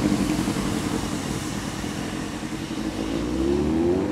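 Vehicle engine running with a rushing noise, holding a steady note, then rising in pitch over the last second as it revs up.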